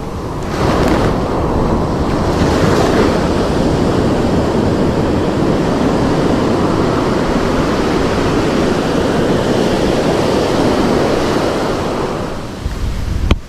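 Ocean surf breaking and washing up the beach, with wind on the microphone; the rush swells about half a second in, holds, and eases off near the end, followed by a brief sharp click.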